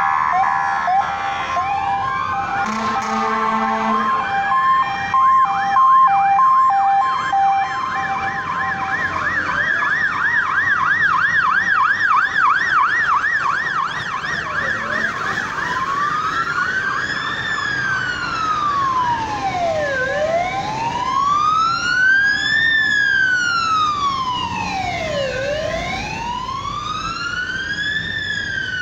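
Emergency-vehicle sirens from a slowly passing convoy of fire engines and ambulances, several at once. A two-tone hi-lo siren plays for the first several seconds, a rapid yelp takes over around the middle, and the second half holds a slow wail rising and falling about every five seconds.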